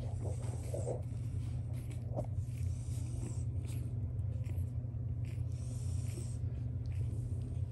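Week-old French bulldog puppies nursing: small grunts and scattered suckling clicks over a steady low hum.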